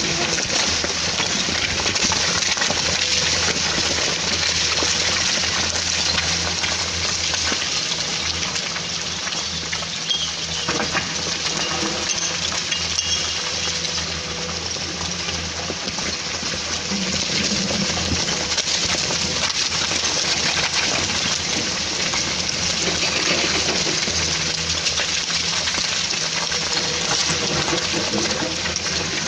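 Excavator's diesel engine running steadily under a continuous rushing clatter of rocks and soil spilling down a slope.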